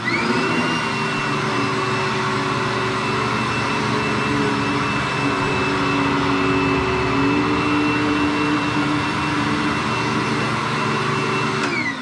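Vacuum cleaner switched on: its motor spins up to a high, steady whine over a loud rush of air, runs steadily, then is switched off near the end, the whine falling away.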